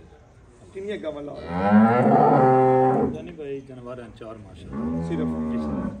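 A cow mooing: one long, loud moo about a second and a half in, then a second, shorter and quieter moo near the end.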